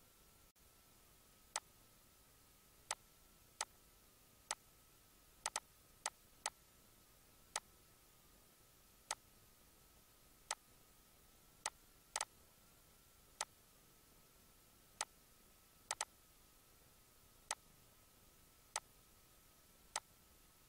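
Computer mouse button clicking about twenty times at uneven intervals, sometimes in quick pairs, over a faint steady high whine.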